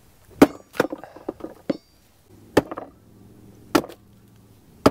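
Hatchet with a train-rail steel head chopping into a small alder log: about five sharp chops at uneven intervals, with a few lighter knocks between.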